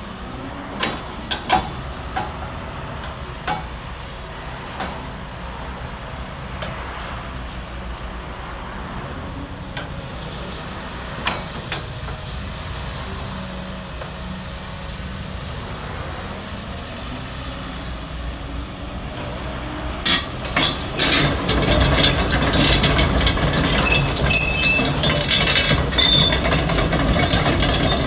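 CAT 320EL hydraulic excavator's diesel engine running steadily, with scattered clicks and knocks from the machine. About 20 seconds in it gets louder as the excavator travels on its steel tracks, the track links clanking and squeaking.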